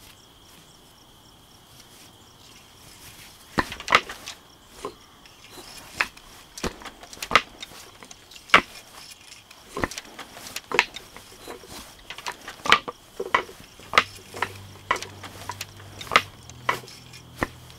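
Wooden parts of a traditional hand loom knocking and clacking as the weaving is worked: sharp, irregular knocks about once a second, starting a few seconds in. A steady cricket trill runs underneath.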